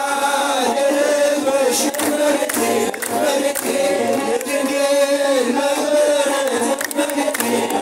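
A crowd singing an Ethiopian Orthodox mezmur (hymn) together, men's voices to the fore, with hand clapping.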